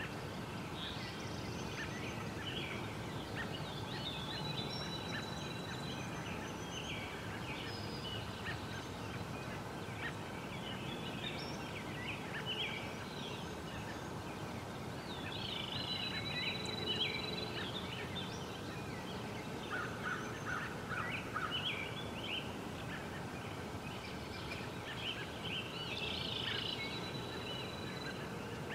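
Wild birds calling and singing: a dense mix of short high chirps and trills, with a few held whistled notes about a second long, over a steady background rush. About two-thirds of the way through comes a quick run of five or so lower notes.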